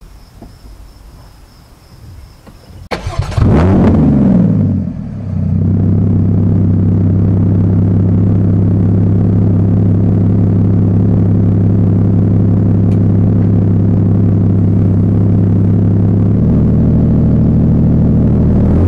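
Porsche 981 Boxster's 2.7-litre flat-six with a Fabspeed Maxflo aftermarket exhaust starting up: about three seconds in it catches with a brief flare of revs, then settles into a steady, loud idle whose note changes slightly near the end.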